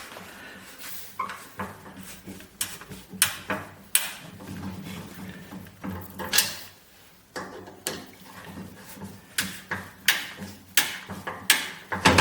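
Irregular sharp clicks and knocks of a new handle and tools being handled while the handle is fitted to an antique crosscut saw, over a low steady hum.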